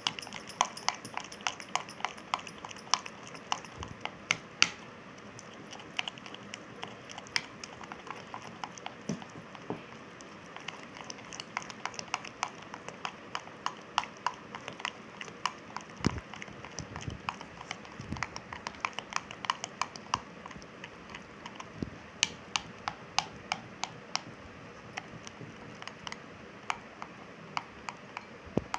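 A spoon clicking and scraping against a glass bowl as thick flour-and-curd batter is beaten continuously to get the lumps out. The clicks come quickly, a few a second, thin out in the middle with a few duller knocks, and pick up again near the end.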